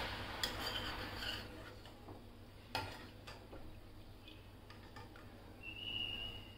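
Steel ladle stirring thin coconut-milk curry gravy in a non-stick kadai, with a few light clicks and scrapes of the ladle against the pan, the sharpest about three seconds in. A brief high tone sounds near the end.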